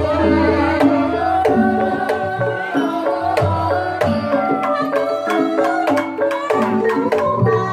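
Javanese ebeg gamelan music: tuned percussion playing stepped melodic notes over regular kendang hand-drum strokes, with a wavering melody line above.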